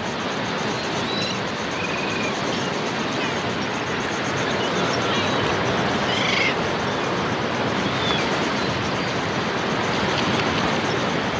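Ocean surf breaking in a steady wash, with a few short bird calls over it.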